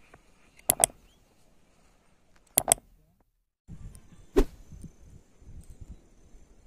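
Mouse-click sound effects, two quick clicks at a time, twice, as a cursor clicks the Follow and Like buttons of an on-screen Facebook bar. After a brief drop-out, outdoor audio comes in from about four seconds: a low rumble of wind on the microphone, with one sharp knock.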